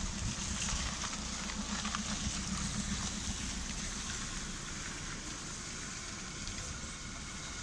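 USATC S160 steam locomotive moving slowly with steam hissing: a steady hiss over a low rumble that slowly fades.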